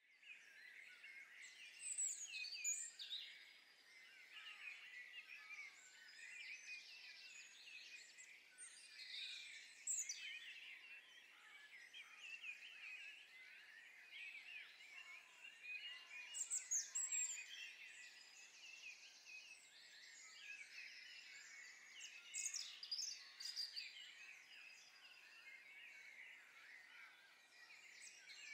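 A faint chorus of many small songbirds chirping and singing together, with a few louder, higher calls standing out now and then.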